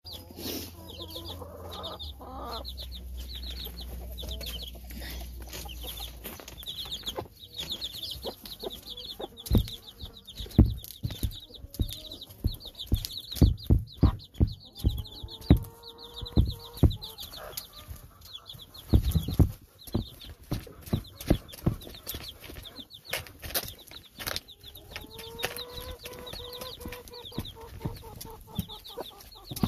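Baby chicks peeping steadily in quick high chirps, while a hen pecks hard at chick feed close by, giving a run of sharp knocks from about ten to twenty seconds in. A hen adds a few low, drawn-out clucking calls now and then.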